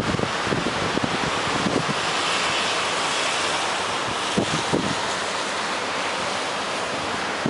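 Hurricane Sandy's storm wind blowing as a steady loud hiss, with a few low thumps of wind buffeting the microphone near the start and about four and a half seconds in.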